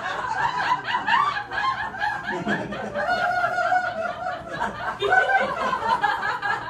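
Audience laughing and chuckling in response to a comedy punchline.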